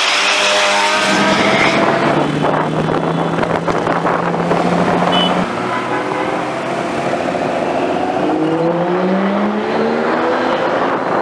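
Sports car engine revving hard at the start, settling into a steady note, then climbing in pitch again as it accelerates near the end.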